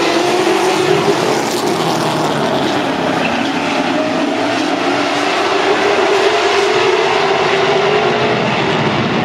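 A pack of late model stock cars racing past on a short oval, their V8 engines blending into one loud drone. Partway through, the engine pitch sags and then climbs again as the field lifts and gets back on the throttle.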